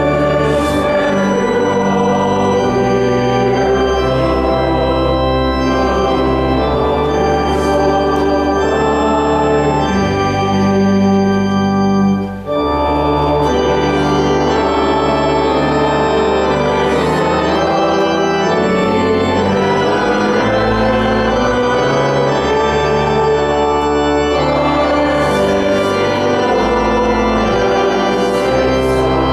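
Church organ playing slow, sustained chords, with a short break about twelve seconds in.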